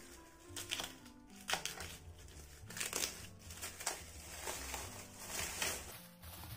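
Black plastic mailer bag crinkling and tearing as it is slit with a utility knife and pulled open, in a run of irregular rustles.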